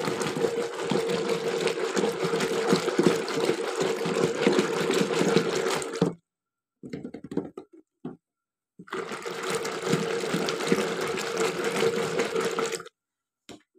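A spoon whisking flour and water in a metal jug, a fast, dense rattling scrape. It stops abruptly about six seconds in and starts again about three seconds later.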